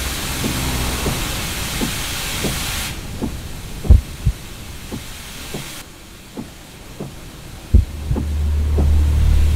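Film sound design: a steady hiss of steam venting around a car, cutting off suddenly about three seconds in, over scattered soft knocks. Two deep thuds come about four seconds in and another near the end, followed by a low hum swelling up.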